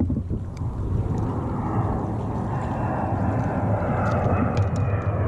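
Steady low rumble, with a few light clicks as a hook is worked out of a bass's mouth with pliers.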